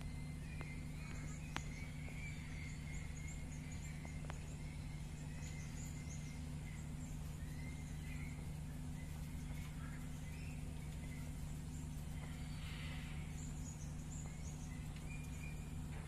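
Many short, high bird chirps come and go over a steady low hum, with two sharp clicks in the first few seconds.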